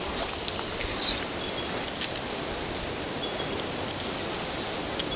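Steady rush of a shallow river flowing, with a few light clicks in the first two seconds.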